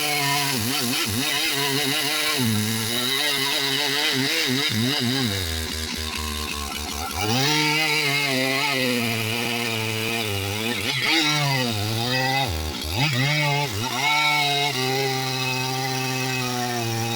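Large Stihl chainsaw running at high revs while cutting wood. Its engine note repeatedly sags and recovers, dropping to a lower, steadier pitch for a couple of seconds near the middle before rising again.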